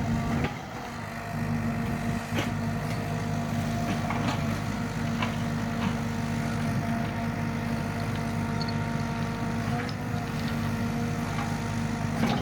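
Caterpillar 307E mini excavator's diesel engine running steadily, with a few short knocks or clanks during its work.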